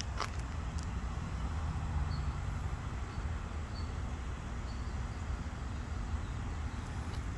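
Steady low outdoor rumble with no distinct event, with a faint click just after the start.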